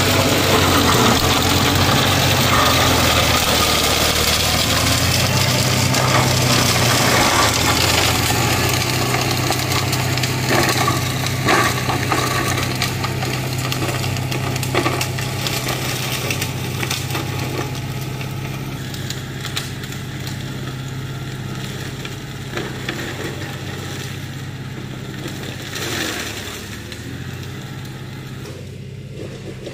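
Mahindra Oja 2130 tractor's diesel engine running under load with a Shaktiman mini mulcher shredding coconut waste, a steady hum under a noisy churn with scattered sharp cracks of debris. The sound fades steadily as the tractor moves away.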